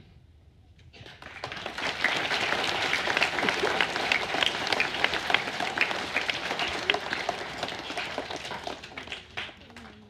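Audience applauding: clapping that starts about a second in, holds steady, then dies away near the end.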